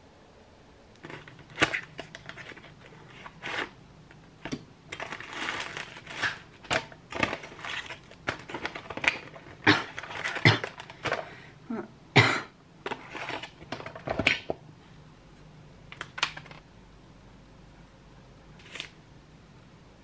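Hands unpacking a small cardboard box and the plastic-wrapped swab inside: a dense run of clicks, taps and paper rustling that stops about fifteen seconds in, with a single tap near the end.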